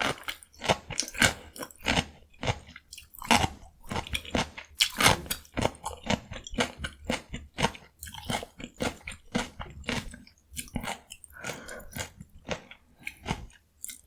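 Close-up chewing of raw cucumber: crisp, wet crunches about two to three times a second, with louder bites here and there.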